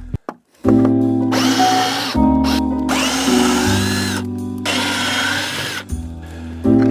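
Cordless drill-driver backing screws out of pallet wood in three short runs, its motor whine sliding in pitch as it loads and frees up, over steady background music.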